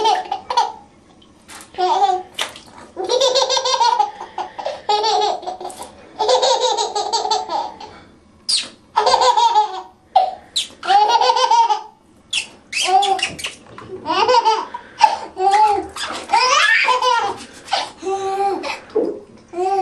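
A baby laughing in many short, high-pitched bursts, with water sloshing in the bathtub.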